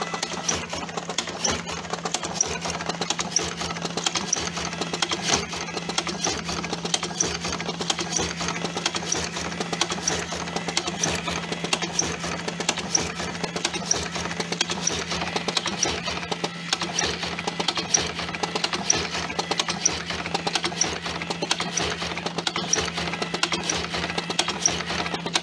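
TobaTech AG-01 electric cigarette tube filling machine running steadily: a motor hum under a dense mechanical rattle, with a sharp tick about twice a second as it cycles through fillings.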